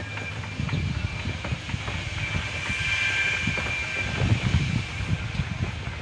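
Bicycle being ridden, with rattling and clattering over the road and wind rumbling on the microphone. A faint steady high tone sounds through the middle seconds.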